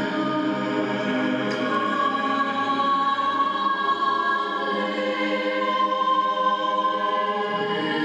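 Choir singing slowly, with long held notes.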